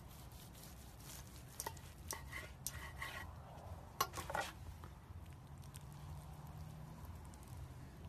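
Large kitchen knife cutting through a crusted meatloaf and knocking on a wooden cutting board: a handful of short scraping crackles and clicks, the sharpest about four seconds in, over a faint low hum.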